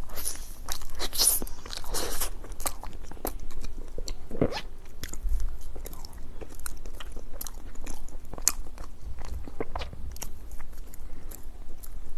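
Close-miked crunching bites and chewing of a crisp snack, with a thick run of crackly crunches in the first two seconds and then irregular crisp crackles as it is chewed.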